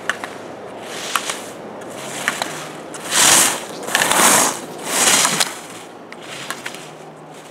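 Slalom skis scraping and carving on firm snow, with three loud hissing turns in quick succession in the middle. Sharp clacks of slalom gate poles being knocked aside come every second or so.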